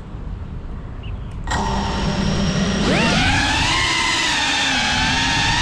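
FPV racing quadcopter motors spinning up and taking off. Its whine starts about a second and a half in, rises sharply in pitch about a second later as the throttle is punched, then wavers up and down with the throttle.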